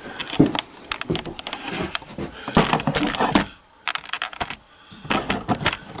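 Handling noise: an irregular string of clicks, knocks and rattles as the camera is picked up and turned around, easing off briefly in the middle.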